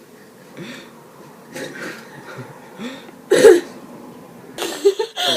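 Soft, indistinct human vocal sounds, with a short loud vocal outburst about three and a half seconds in and a breathy, noisy burst near the end.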